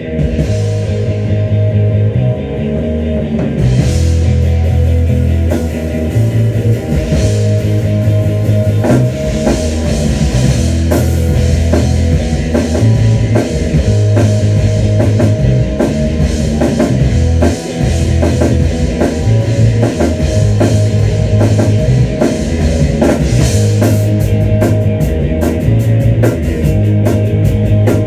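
Rock band playing live in a rehearsal room: electric guitar and bass guitar riff, with the drum kit and cymbals coming in a few seconds in and carrying a steady beat.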